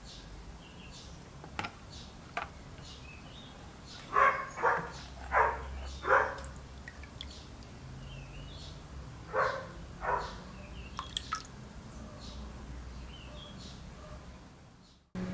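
Birds chirping in the background, with a handful of short, sharp sounds in two clusters: four about four to six seconds in, and two more near ten seconds. A few fainter clicks fall between them.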